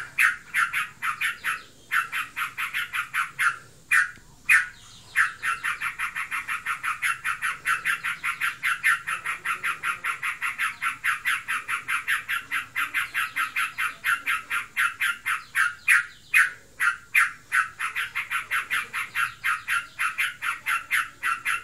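Yellow-vented bulbul giving a fast, unbroken chattering rattle of short notes, about seven a second, with a few brief breaks in the first five seconds. This is the long continuous 'ngebren' chatter, which the owner cannot tell apart as the bird being in breeding condition or simply singing in top form.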